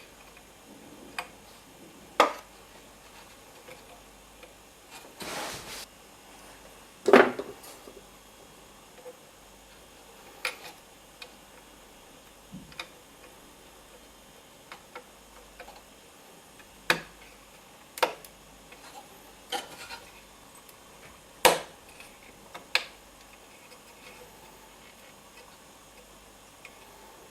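Irregular clicks and knocks of small tools and parts being handled while a Sony SCD-777ES SACD player is worked on, with a short rustle about five seconds in.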